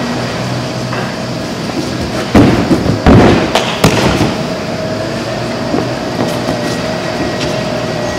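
A gymnast tumbling down a sprung tumbling track and landing on the mats: a quick series of heavy thuds from hands and feet striking the mats between about two and four seconds in. A steady mechanical hum runs underneath.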